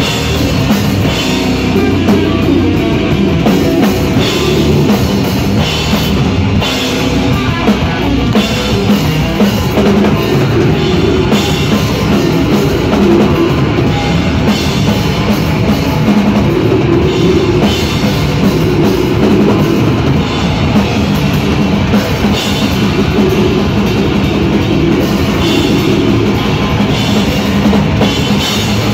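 Death metal band playing live and loud without a break: heavily distorted electric guitars over a full drum kit.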